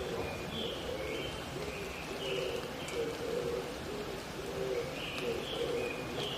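Oriental turtle dove (Korean mountain pigeon) cooing in repeated low phrases, with short high chirps of a small songbird over it.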